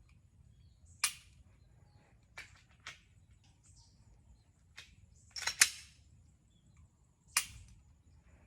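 Pistol shots from elsewhere on the range: about seven single sharp cracks at irregular spacing, some faint, with a close pair about five and a half seconds in.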